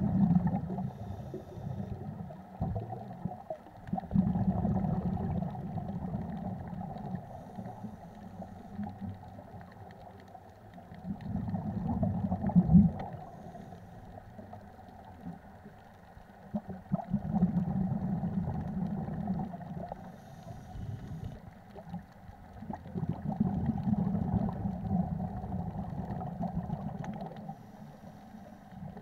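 Scuba diver's regulator breathing heard underwater: bubbly, rumbling exhalations of about two to three seconds, coming roughly every six seconds, five times, over a faint steady hum.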